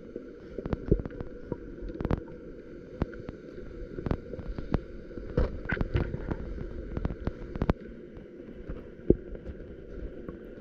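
Steady low water noise crossed by frequent sharp clicks and knocks, the loudest about a second in and near the end.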